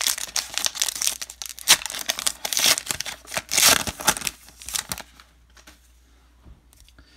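A Topps trading-card pack wrapper being torn open and crinkled by hand: a dense run of crackles and sharp rustles that stops about five seconds in.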